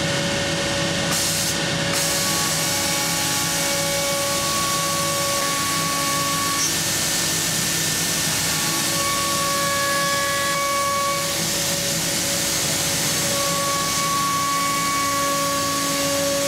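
Selexx Chief CNC router cutting a wood panel, its spindle and dust-extraction suction making a loud, steady hiss-like noise. Pitched tones in it come and go every few seconds as the cutter works along the panel.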